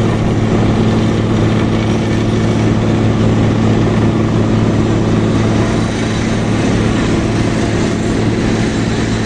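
Hydraulic vibratory pile driver running under load, a loud steady hum as it vibrates a pile down into the ground.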